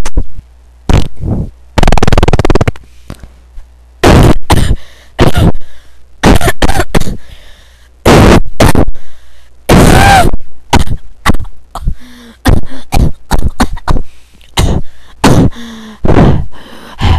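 A person making a fast string of short, loud mouth noises close to a microphone, like beatboxing: pops, spits and clicks, a few with a brief voiced tone.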